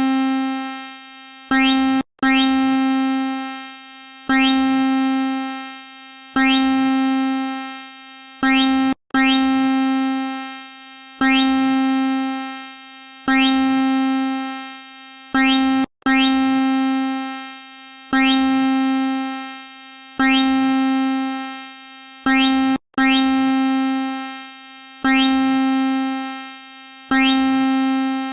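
Synthesized emergency-alert (EAS) alarm tone: a single keyboard-like note on one pitch, struck about every two seconds and fading after each strike. A brief cutout comes about every seven seconds as the pattern loops.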